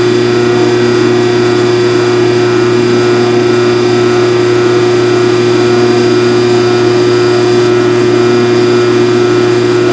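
Phase-A-Matic rotary phase converter running with a steady hum.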